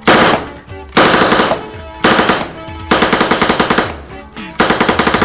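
Uzi submachine gun firing five short full-auto bursts, about ten shots a second, with background music underneath.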